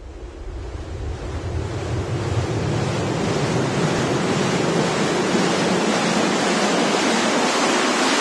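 A loud rushing noise like surf or a waterfall, swelling up over the first two seconds and then holding steady.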